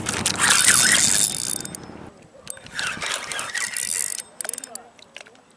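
Fishing reel ratcheting with dense, rapid clicks as line is worked against a hooked channel catfish. The clicking is loudest in the first two seconds, comes back about two and a half seconds in, and fades near the end.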